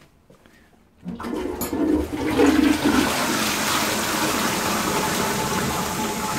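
High-level DM Rhino cistern flushed by its pull chain: a few faint clicks, then about a second in a sudden rush of water down the straight flush pipe into an Impulse toilet pan, swirling on steadily.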